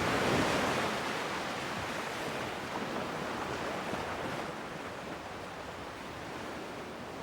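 Sea waves washing, a steady rush that swells in the first second and then slowly eases.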